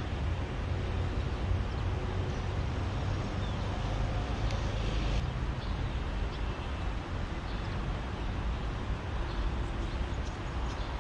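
Steady low outdoor rumble of background noise, with a few faint ticks about halfway through.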